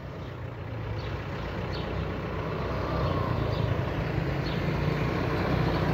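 A motor vehicle's engine running with a steady low hum that grows gradually louder, as if drawing closer.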